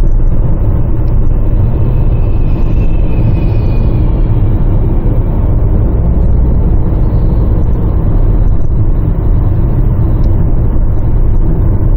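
Steady low rumble of engine and road noise inside the cabin of a 2016 Nissan Qashqai 1.6 diesel driving at road speed.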